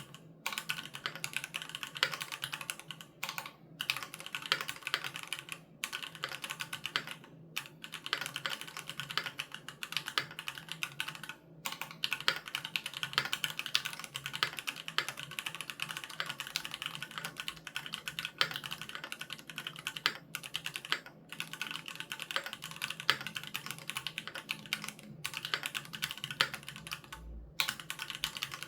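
Continuous fast typing on a Keychron Q3 Knob mechanical keyboard with Gateron G Pro Red linear switches, a dense run of key clicks broken by brief pauses every few seconds.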